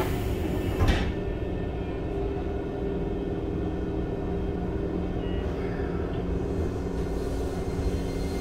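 Sliding passenger doors of a Keikyu 1500 series train car shutting, closing with a thud about a second in. After that comes the stationary car's steady hum.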